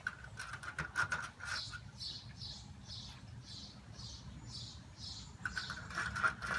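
A bird chirping over and over, short high-pitched calls about two a second, with a faint steady higher tone behind it near the start and again near the end.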